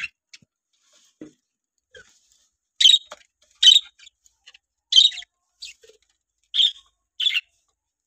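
Budgerigars giving short, sharp chirps: one right at the start, then about six spaced through the second half.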